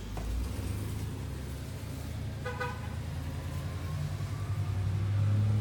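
Motor vehicle running with a steady low hum that grows louder toward the end, and a short horn toot about two and a half seconds in.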